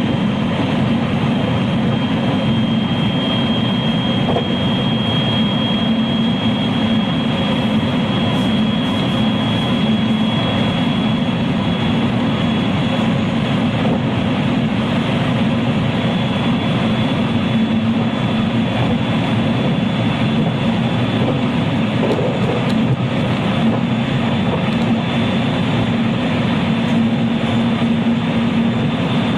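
Steady running noise inside a JR West 223 series electric train car (KuMoHa 223-3016) cruising between stations: a constant rumble of wheels on rail with a thin high whine that edges slightly upward.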